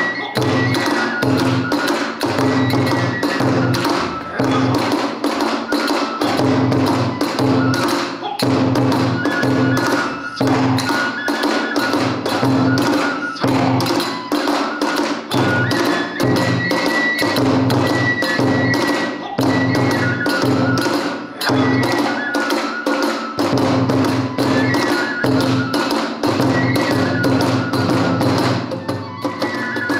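Kagura hayashi music: a large drum beaten in a fast, driving rhythm under rapidly clashing hand cymbals, with a bamboo flute playing a high melody. The low drum beats drop out briefly twice.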